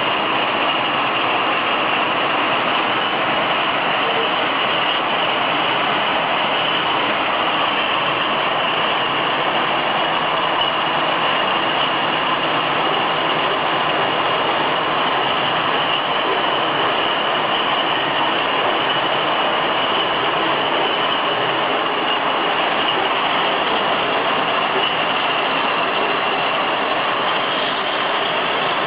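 Automatic glass bottle washing machine running: a steady mechanical din with a thin high whine held over it.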